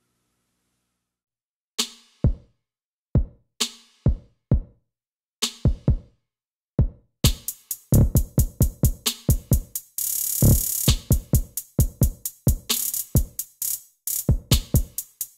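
Electronic drum-machine beat in backing music. After about two seconds of silence it starts as sparse paired hits, then becomes a dense, fast steady beat about seven seconds in, with a loud burst of hiss about ten seconds in.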